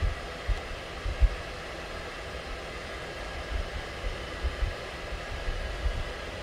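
A box knife being dug into the rubber fuel hose on a fuel injector, heard as soft low thuds and knocks from the hands and blade over a steady hiss.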